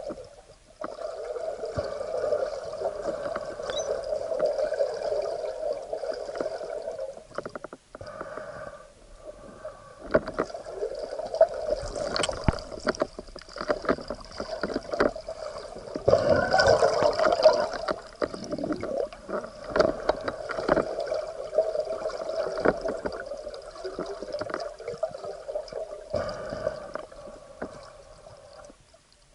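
Muffled underwater sound picked up through an action camera's waterproof housing: a steady droning hum that drops out briefly a few times, with scattered knocks and clicks and some gurgling of water.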